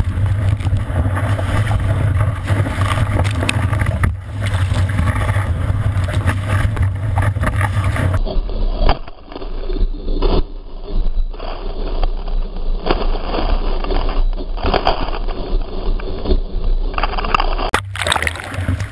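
Loud rushing of breaking whitewater around a surfboard, with a deep rumble of wind and water buffeting a board-mounted waterproof camera and frequent splashes. About eight seconds in the sound turns duller and muffled, brightening again near the end.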